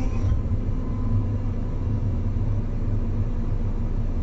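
Electric Cat 320 Z-Line excavator's electric motor and hydraulic pump running under load, heard from inside the cab as a steady low rumble. A higher whine cuts off just after the start.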